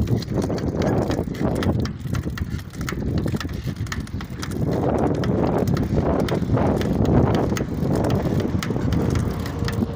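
Wind rushing over the microphone of a moving bicycle in gusts, with scattered light clicks and rattles from the bike as it rides.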